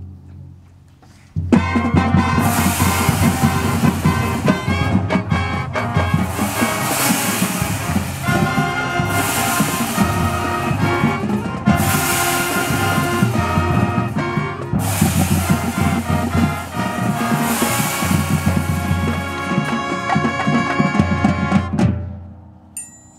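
Marching band's brass section and percussion playing a loud full-ensemble passage of a field-show opener, coming in about a second and a half in after a short pause and breaking off just before the end.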